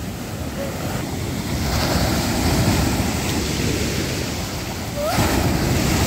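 Rough sea surf breaking on the shore: the rush of a wave builds over a couple of seconds and fades, then another wave breaks near the end. Wind is buffeting the microphone.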